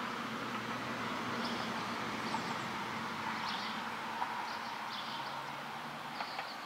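Steady outdoor background noise, a rushing hiss with a faint low hum under it, with a few short high bird chirps every second or so.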